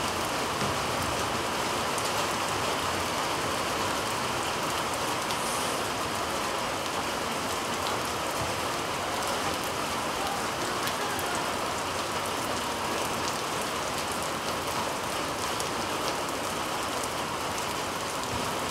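Heavy rain falling steadily, a constant wash of noise dotted with scattered sharp drop taps.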